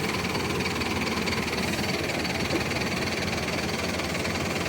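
Heavy machinery diesel engine running steadily, with an even rumble.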